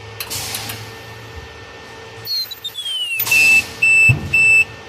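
Ultrasonic welding machine switched on: a short hiss, then a falling electronic whine, then three loud high-pitched tones in quick succession.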